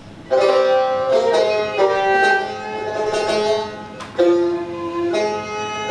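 Classical Persian instrumental music: a tar plays a phrase of plucked, ringing melody notes with sharp attacks.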